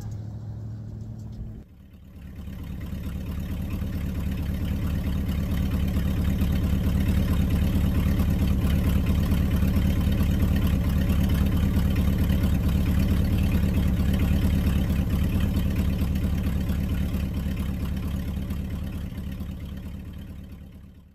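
Engine idling with a fast, even low pulse, fading in about two seconds in and fading out near the end.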